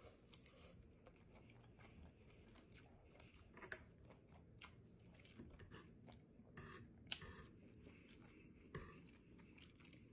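Quiet, close-up chewing of a bite of fried catfish sandwich on toast, with a steady run of small mouth clicks.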